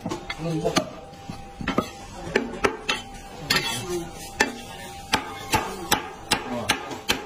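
Heavy meat cleaver chopping roast fowl on a thick wooden chopping block: a dozen or so sharp thwacks at an uneven pace, coming faster in the second half.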